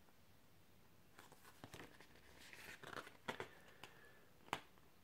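Faint rustling and a few soft ticks of the pages of a small paper booklet being turned by hand, over near silence. The sharpest tick comes about four and a half seconds in.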